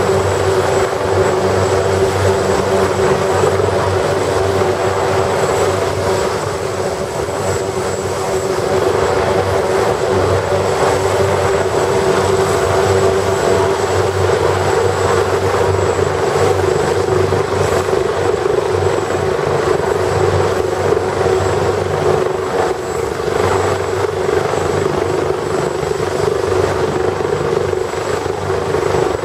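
AugustaWestland AW139 helicopter with twin turboshaft engines running on the ground, main and tail rotors turning, before lift-off. A loud, steady engine and rotor sound carries a thin, high turbine whine.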